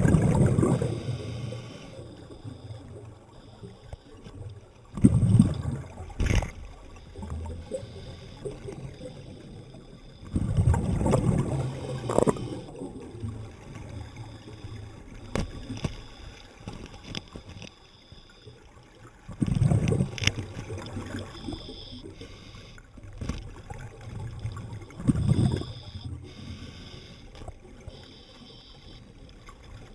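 Scuba diver's exhaled bubbles gurgling out of the regulator underwater, in surges every five or six seconds.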